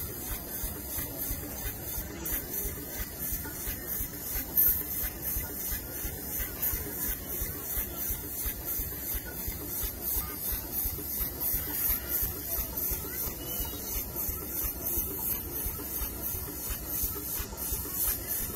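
Steam traction engine running under belt load, its exhaust beating in a steady, quick rhythm with a hiss of steam. One brief louder burst comes about four and a half seconds in.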